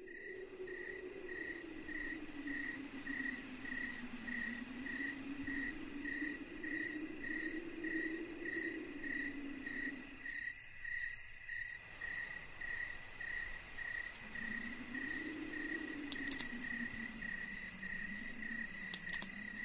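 Night ambience of crickets chirping steadily, a high pulsing chirp about twice a second, over a low drone that slowly rises and falls and drops out for about two seconds midway. A few brief high clicks sound near the end.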